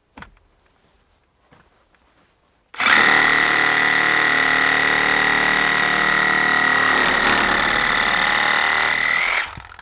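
DeWalt DCS367 18-volt brushless reciprocating saw starting about three seconds in and running at a steady speed for about six seconds with a high whine, then stopping.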